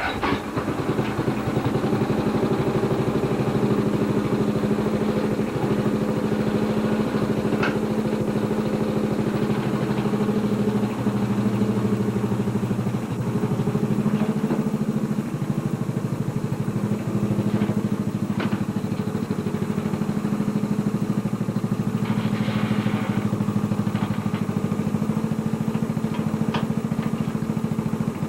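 Riding lawn mower's engine running steadily at an even speed, with a few faint clicks.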